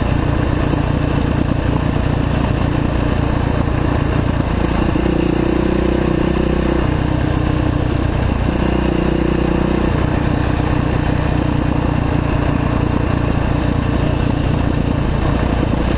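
2009 Yamaha YZ450F single-cylinder four-stroke dirt-bike engine running at steady low revs while the bike rolls down a dirt track. The engine note picks up twice, about five seconds in and again around nine seconds, then settles back.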